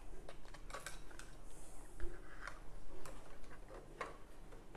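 Light clicks and taps of thin wooden panels being handled and slotted together, with a sharper knock about two seconds in.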